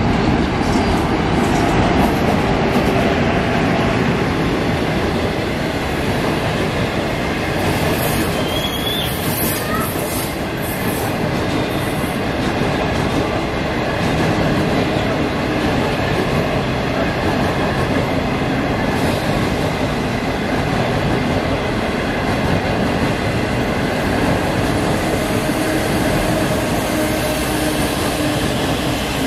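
A locomotive-hauled passenger train passing close by, its green passenger coaches running over the rails with a steady, loud noise of wheels on track.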